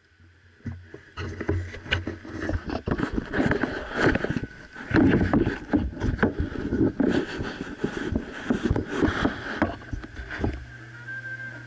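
Handling noise from a camera being carried and set down: its microphone rubs and knocks against hands, clothing and surfaces in a dense run of irregular scrapes and bumps. About ten seconds in this gives way to a steady low hum.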